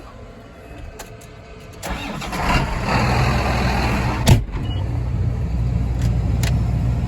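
An engine cranks and starts about two seconds in, with a sharp click as it catches, then settles into a steady idle.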